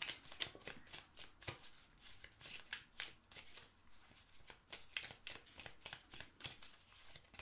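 A deck of oracle cards being shuffled by hand: a quiet, irregular run of card slaps and rustles, several a second.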